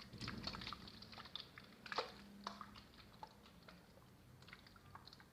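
Faint, close-miked tapping and clicking on small objects: quick and irregular for the first two seconds or so, then sparser, scattered taps.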